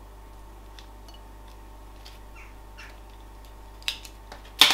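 Kitchen tongs lifting meatballs into a bowl of spaghetti: a few light taps, then two sharp clacks near the end, the second louder.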